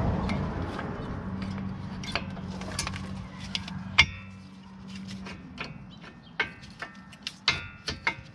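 Metal clinks and taps from a brake caliper and its bolts being handled and fitted over a front disc brake rotor, some of them ringing briefly; the loudest comes about four seconds in, and a quick run of clinks follows near the end. A low steady hum underneath fades out about halfway through.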